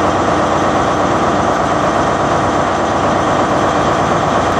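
A loud, steady rushing noise with no tune or beat, laid over an animated intro title card.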